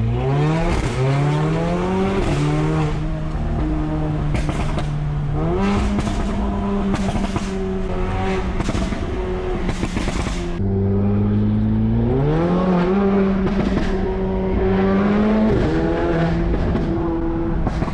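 Mercedes-AMG A45's turbocharged four-cylinder engine with a Milltek exhaust, heard from inside the cabin, pulling hard and climbing in pitch, then holding steady in steps as it shifts up. A string of sharp cracks from the exhaust comes through the middle, the pitch drops suddenly about ten seconds in, then climbs again.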